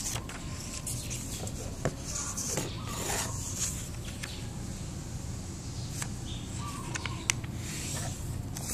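Sheet of origami paper rustling as it is handled and folded into a triangle, with a few sharp taps as it is pressed down, over a steady low hum.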